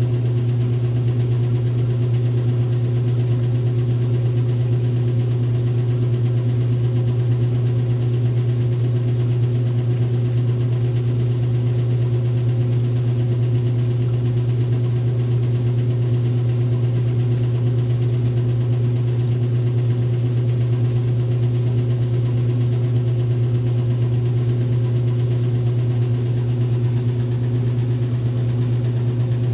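1962 RCA Whirlpool LJA70 washing machine running with a steady, unchanging motor hum.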